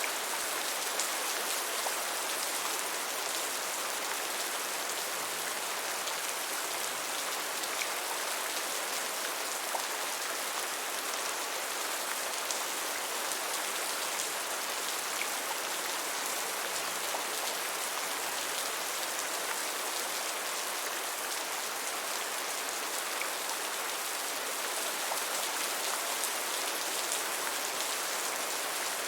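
Steady rain falling, an even hiss of many fine drops with no change in strength.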